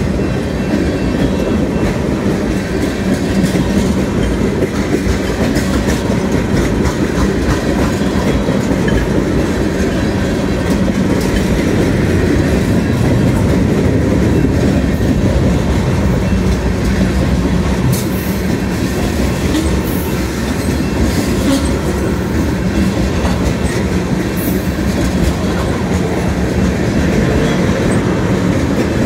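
Mixed freight train cars rolling past: a steady, loud rumble of steel wheels on the rails, with a few sharp clicks in the second half.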